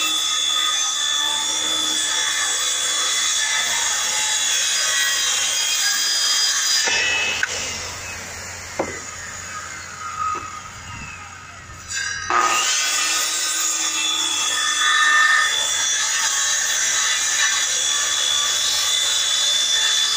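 Hand-held electric circular saw cutting through plywood. About seven seconds in the saw is let off and its pitch falls as it winds down, with a couple of knocks in the lull. About twelve seconds in it starts up again with a rising whine and cuts on.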